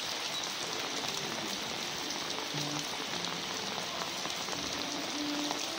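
Steady rain falling on a flooded street, an even hiss of drops striking pavement and standing water.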